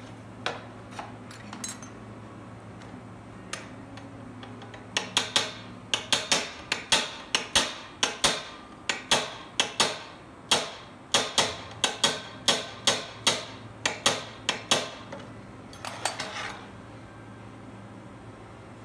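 Small hand hammer tapping the steel blade of a steel-rule cutting die to true it during finishing adjustment: sharp, ringing metal-on-metal taps. A few scattered taps come first, then a run of about two dozen taps at roughly two to three a second, ending with a quick flurry.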